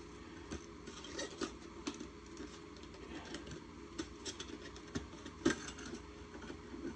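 Light clinks and taps of small metal engine parts being handled and set down on a workbench, with a sharper clink about five and a half seconds in.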